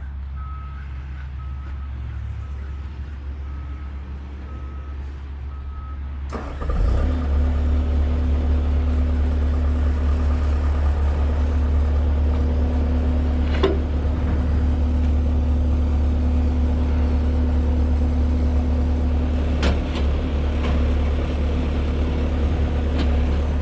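A backup alarm beeps over an idling engine, then about six seconds in the engine speeds up and runs steadily at higher revs, louder, as the machine takes up a winching pull; a few sharp clicks later on.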